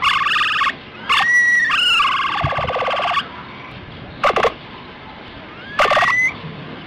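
Capybara calls: a few short buzzy calls and one longer, rattling call of about two seconds, starting about a second in, with thin rising whistles mixed in.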